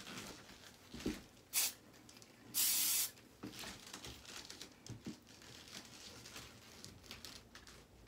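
A half-second burst of hairspray about two and a half seconds in, after a shorter spurt of hiss, the loudest thing here. Around it, soft rustles and ticks of hair being combed and handled while it is teased.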